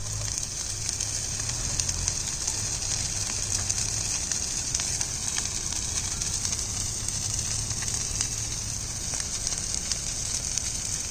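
Dry brush and grass burning in an open field fire: a steady hiss with scattered crackles and pops over a low rumble.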